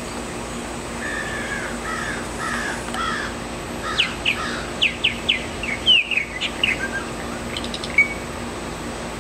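Male purple martin singing: low gurgling warbles for about two seconds, then a quick run of sharp chirps, with a steady low hum in the background.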